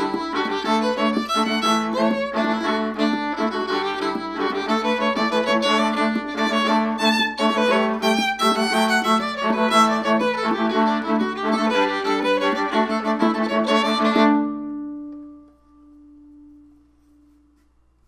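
Instrumental music with many layered notes. It stops about fifteen seconds in, leaving one held low note that fades out.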